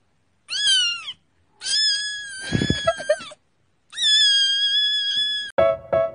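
A kitten meowing three times: a short meow falling in pitch, then two long drawn-out meows. Near the end, an electronic keyboard starts playing short repeated notes.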